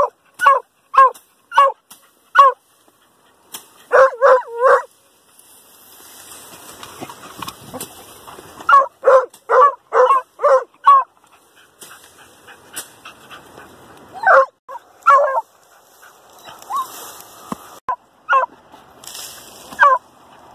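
Hunting hounds barking in quick runs of sharp barks at the mouth of an armadillo's burrow, baying at the quarry holed up underground. The runs come in clusters of three to seven barks, with short pauses between them.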